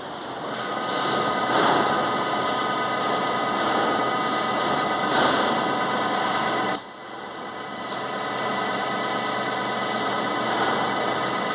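Doosan DNM400 vertical machining centre running, a steady mechanical whirr with a high whine through it. About seven seconds in there is a sharp click and the noise drops, then slowly builds again.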